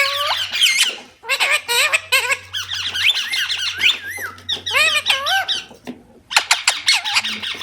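Indian ringneck parrot giving a rapid string of short, squeaky chirps and squawks that swoop up and down in pitch, with a brief pause about six seconds in.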